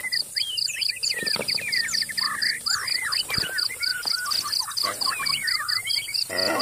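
Wildlife ambience: a high insect chirp pulsing steadily about four times a second, under many short, quick-sweeping animal calls, with a brief harsher cry near the end.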